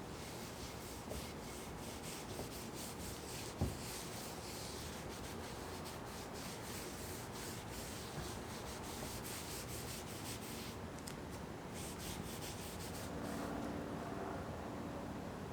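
Quick, repeated hand-sanding strokes rubbing across a surface, with a single knock about three and a half seconds in.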